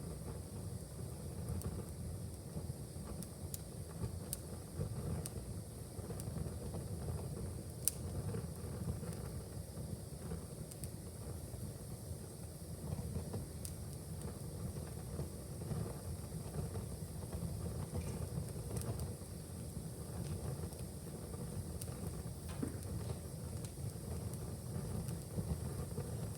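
A fire in a fireplace crackling: scattered sharp pops, one louder about eight seconds in, over a steady low rumble.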